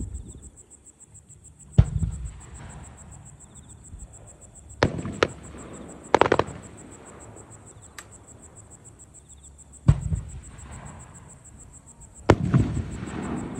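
Distant aerial firework shells bursting, a series of sharp booms a few seconds apart, each trailing off in a short echoing rumble. Two bursts come close together about five seconds in, and the last, near the end, is among the loudest.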